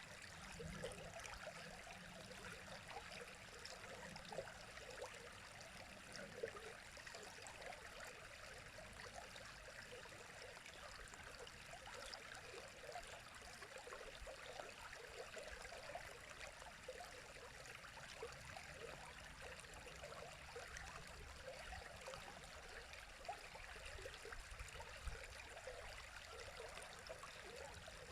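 River water flowing: a faint, steady babbling rush with small flickering gurgles.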